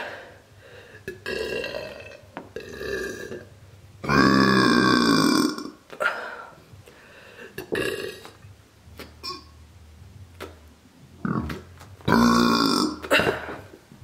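A woman's burps released into the neck of a latex balloon to inflate it: two loud, long, deep burps about four and twelve seconds in, with shorter, quieter burps between.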